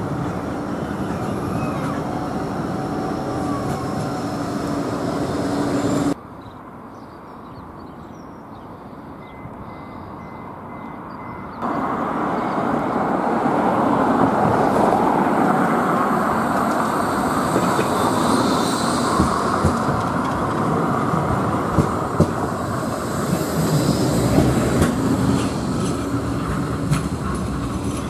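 Bombardier Flexity 2 trams running on the tramway, with motor hum and the clicks of wheels on rail joints. The sound cuts abruptly to a quieter stretch about six seconds in, then back to louder tram running from about twelve seconds.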